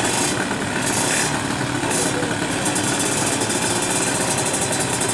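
Two-stroke drag-race motorcycle engine running steadily at idle, a rapid even pulsing.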